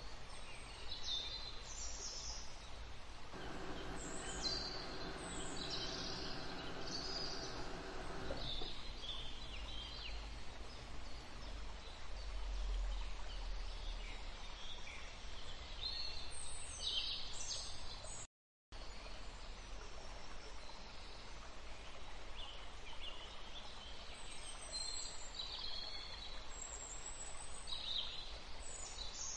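Small birds chirping on and off over steady background noise. A droning hum with several pitches runs for about five seconds near the start, and the sound cuts out completely for a moment about two-thirds of the way through.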